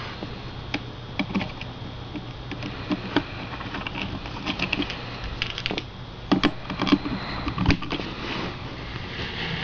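Irregular small clicks and taps of a small Phillips screwdriver driving screws into a laptop hard drive's caddy, with a few sharper knocks past the middle as the drive and caddy are handled.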